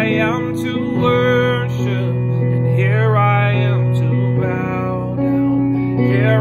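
A man singing a slow worship song over an instrumental accompaniment of long held chords.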